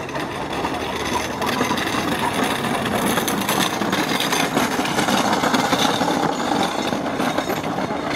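A wooden gravity cart rolling down a gravel road, its wheels making a steady noise on the stones that grows a little louder as it comes close, with the footsteps of people running alongside.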